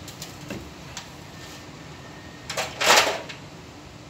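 Handling clatter from a PPR pipe welder's carrying case as the heater tool is taken out: a light knock about half a second in, then a louder rattling clatter of clicks near three seconds in.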